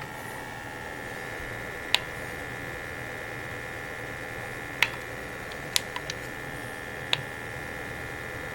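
Homemade USB box fan (a 120 mm computer fan) running with a steady hum and whine. Six short sharp clicks break through it.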